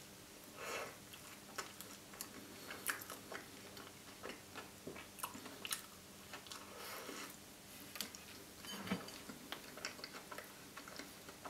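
Close-miked chewing and wet mouth sounds with scattered small clicks, as a person eats a soft bite of chocolate-coated ice cream sandwich. A soft knock comes about nine seconds in.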